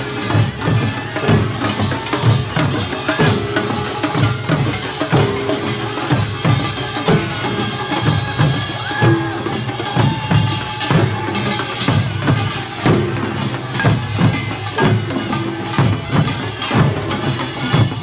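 Korean pungmul folk percussion band playing: buk barrel drums and other pungmul percussion beat out a steady, driving rhythm, with short held tones sounding over the drumming.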